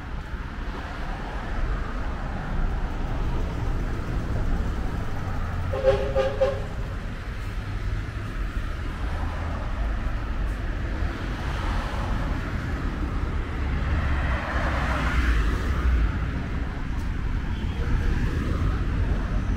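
City street traffic with a steady low rumble, a short two-tone vehicle horn honk about six seconds in, and a vehicle passing close by around three-quarters of the way through.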